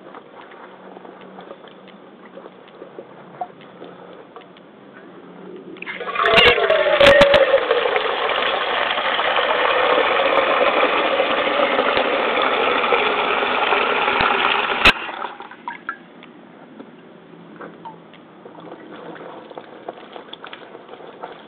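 Water pouring and splashing onto rubber fishing waders, with hands rubbing the wet rubber. From about six seconds in there is a much louder steady rush of running water, which lasts about nine seconds and stops abruptly with a click.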